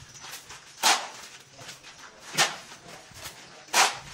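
Steel shovel blade scraping across a concrete floor as it scoops mortar, three sharp scrapes about a second and a half apart.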